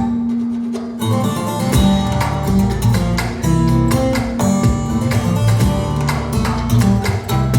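Recorded acoustic guitar music, quick plucked and strummed notes over a bass line, played back over a Børresen Acoustics loudspeaker system. The bass drops out briefly near the start and comes back about a second in.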